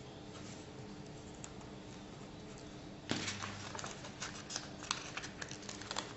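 Paper crafting handling sounds: a few light ticks at first, then from about three seconds in a run of paper or sticker-sheet crinkling and rustling with sharp clicks.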